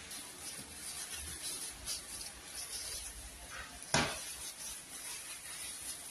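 Thin plastic bag crinkling and rustling as it is handled and peeled off a ball of fufu, with a single sharp knock about four seconds in as the fufu is set down on a plastic tray.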